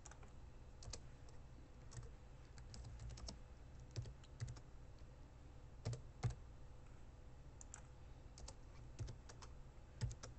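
Computer keyboard being typed on in irregular runs of faint keystrokes, a few struck louder than the rest, over a steady low hum.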